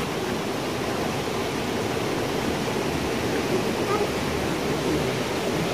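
A steady rushing noise, even throughout, with no distinct knocks, splashes or calls.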